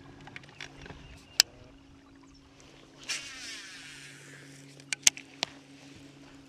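Baitcasting reel being handled, giving a few sharp clicks, the loudest about five seconds in, with a brief rushing hiss about three seconds in. A faint steady hum runs underneath.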